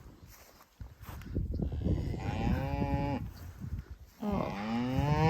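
A cow mooing twice: a short moo about two seconds in, then a longer moo that rises in pitch and holds near the end, over a low rumbling noise.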